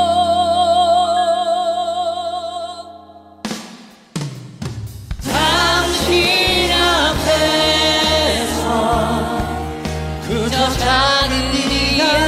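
Korean ballad song: a male voice holds a long note with vibrato that fades out about three seconds in, then after a short lull the singing resumes over fuller accompaniment, with a steady drum beat coming in near the end.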